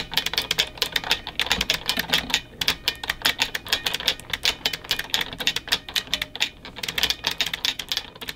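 Fast typing on a mechanical keyboard, a rapid run of key clacks with a couple of short pauses.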